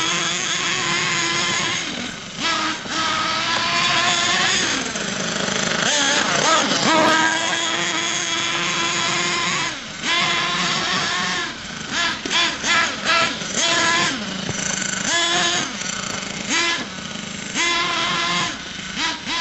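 Nitro RC monster truck's small two-stroke glow-fuel engine revving, its pitch rising and falling with the throttle. From about ten seconds in it comes in short repeated throttle blips.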